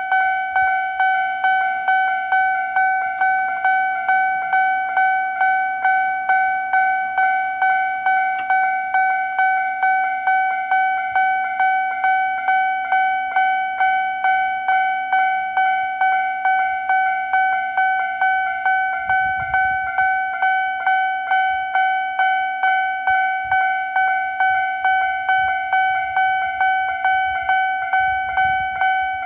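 Japanese railway level crossing warning alarm ringing steadily: one electronic bell tone struck about twice a second.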